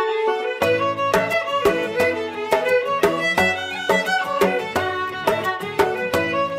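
Background instrumental music with a quick, even beat. A single held note gives way to the full tune about half a second in.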